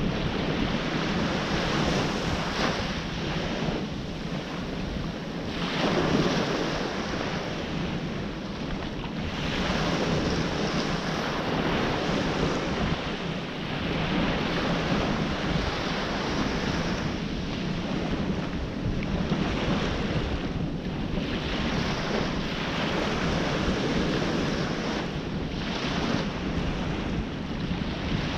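Ocean surf breaking and washing ashore, swelling and easing every few seconds, with wind noise on the microphone.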